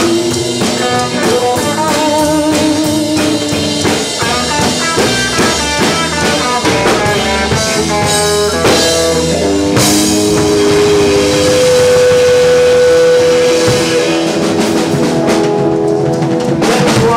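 Live rock band playing an instrumental stretch: electric guitar lead lines over a drum kit, with a long held note about two-thirds through.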